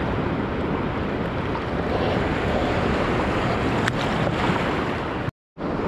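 Sea waves washing on a rocky shore, with wind buffeting the microphone; the sound drops out for a moment near the end.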